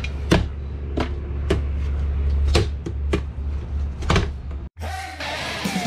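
An RV accordion window shade being handled: about eight irregular sharp clicks and knocks over a steady low hum. The sound cuts off abruptly near the end and rock guitar music starts.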